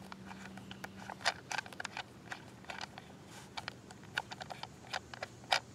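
Irregular small plastic clicks and taps of handling as the microphone is twisted off an Anabat bat detector's camouflage case.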